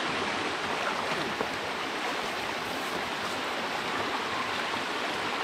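Creek water rushing steadily over and through a beaver dam of sticks and mud.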